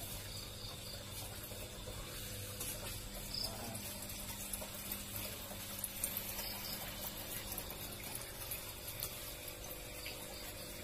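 Water running steadily, with a faint steady hum underneath.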